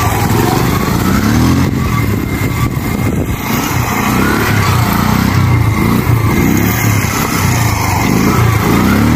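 Bajaj Platina's small single-cylinder four-stroke engine being blipped over and over as the bike is balanced on its rear wheel in a slow wheelie. Each blip rises in pitch, about once a second, over a steady engine hum. The rider says the engine's piston is worn.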